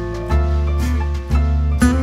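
Background music with acoustic guitar over a steady bass line.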